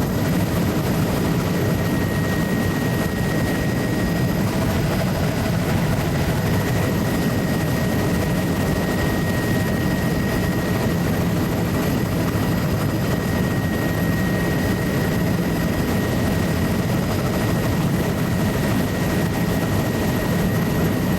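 Steady drone of a low-flying aircraft's engine and rotor or propeller, heard from aboard in cruising flight, with a thin steady whine above the low rumble.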